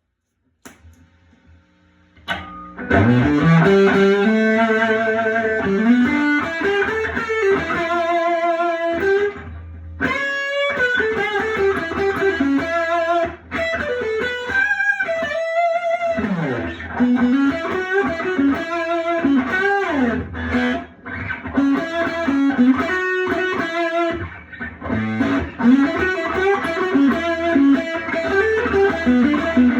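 Electric guitar, a Mexican-made Fender Telecaster played through a Tweed Deluxe tube amp, playing a lead line with string bends and vibrato. It comes in after about two seconds of near quiet.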